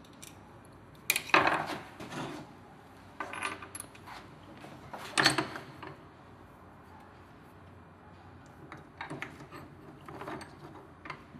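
Small metal parts of a wet stone polisher's gear head and hand tools clinking and rattling as they are handled, with sharp clacks about a second in and about five seconds in. A run of lighter knocks follows near the end as the head is set into a steel bench vise.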